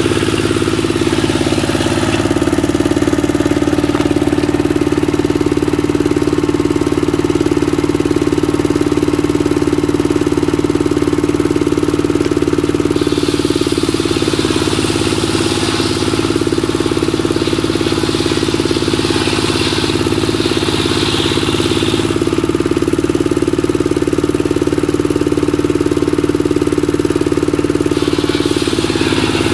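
Dongfeng single-cylinder diesel engine running steadily, driving a circular saw. A little before halfway the blade cuts through timber for several seconds, and it starts cutting again near the end.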